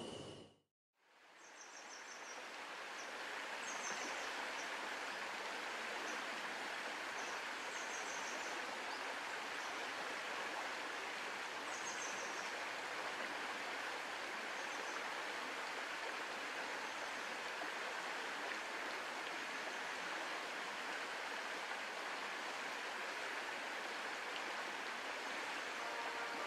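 Shallow river flowing steadily over stones, a continuous rushing that fades in over the first few seconds. A few faint, high bird chirps come now and then.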